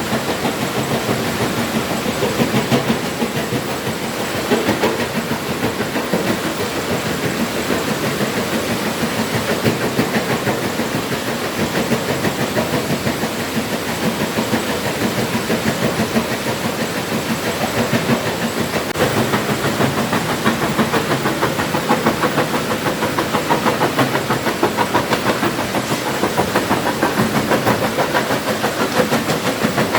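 Stone-crushing machine running, with a loud, steady clatter of rock being broken inside it and a fast, even rattle throughout.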